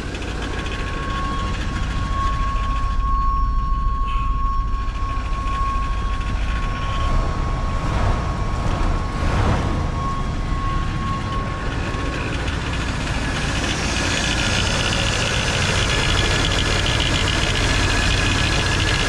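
1989 GMC Sierra engine running at idle, with a steady whine from a loose accessory-belt pulley that is making noise. Near the end the higher part of the noise gets louder.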